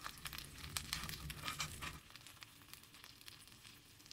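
Faint sizzling and crackling of oil under dumplings pan-frying in a skillet, busier for about the first two seconds and then quieter and sparser.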